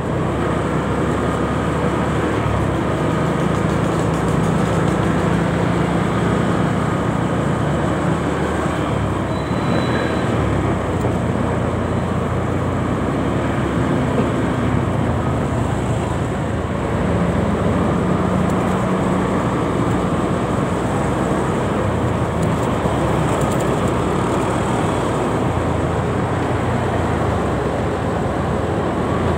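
Ride-along sound from a motorcycle creeping through dense stop-and-go traffic: the steady hum of its engine mixed with the noise of surrounding cars and motorbikes.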